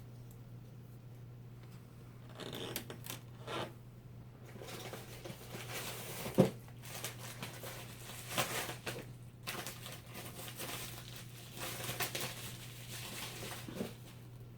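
Plastic crinkling and rustling while a laptop LCD panel and its parts are handled, in uneven spells, with one sharp click about six seconds in.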